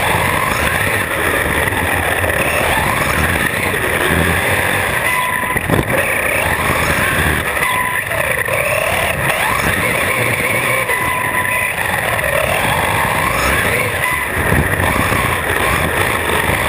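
Onboard sound of an electric RC truck driving hard: the brushless motor whines, rising and falling in pitch as the throttle comes on and off, over steady tyre and wind noise. A sharp knock about six seconds in.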